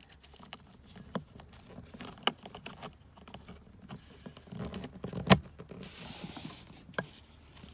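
Child car seat top-tether hook and strap webbing being handled and clipped onto the seat-back tether anchor: scattered small clicks and rustling, with one sharp click about five seconds in.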